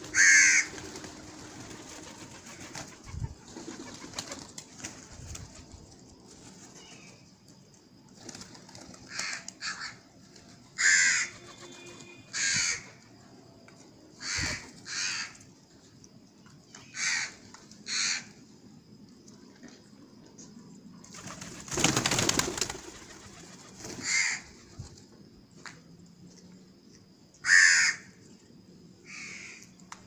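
House crows cawing, about a dozen short harsh caws at irregular intervals, with rock pigeons cooing faintly underneath. A longer loud rush of noise comes about two-thirds of the way through.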